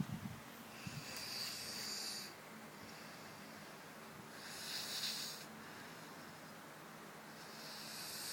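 Seven-year-old child snoring in sleep: hissy breaths about every three and a half seconds, three in all. A short knock at the very start.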